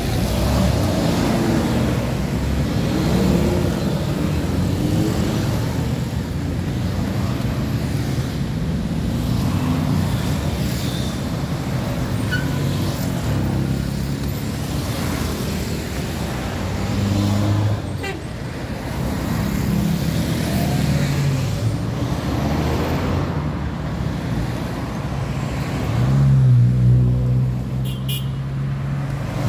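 Busy city highway traffic: cars and trucks running past with engine and tyre noise, one heavier engine louder for a few seconds near the end.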